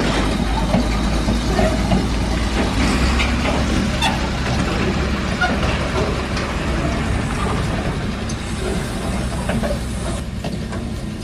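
Howo A7 tractor unit's diesel engine running as it tows an empty lowbed trailer away at low speed, with the trailer and its raised ramps clanking and rattling over rough ground. The sound fades gradually as the rig moves off.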